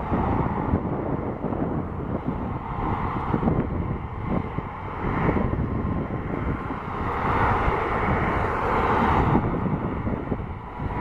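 Airbus A320's jet engines running at low power as it taxis, a steady rushing hum that swells for a couple of seconds past the middle, with wind buffeting the microphone.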